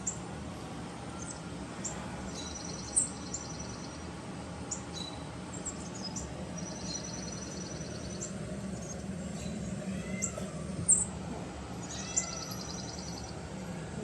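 Birds chirping in the background: short high chirps and a few buzzy, rapidly repeated trills about a second long, over a steady low hum.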